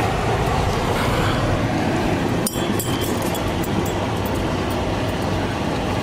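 Steady vehicle running noise heard from inside a car's cabin: engine and tyres on snowy pavement, with a short knock about two and a half seconds in.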